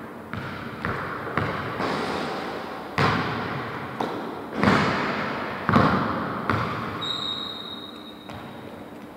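Basketball bouncing on a wooden gym floor, a handful of separate, irregularly spaced bounces, each echoing through a large hall. A high steady tone sounds for about a second near the end.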